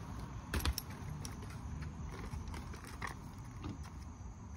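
Bugaboo Butterfly travel stroller being unfolded smoothly: a few scattered clicks and rattles from its folding frame and latches, the loudest pair about half a second in and another about three seconds in.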